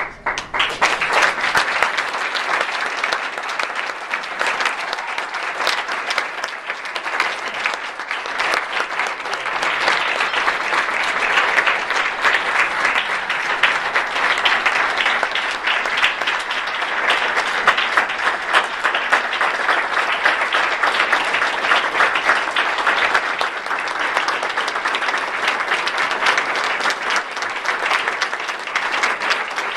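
Audience applauding, a sustained round of clapping that starts abruptly and keeps going at full strength.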